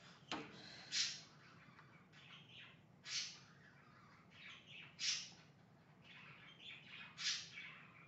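Two pet birds chirping and calling: four loud high calls about two seconds apart, with softer chirps in between.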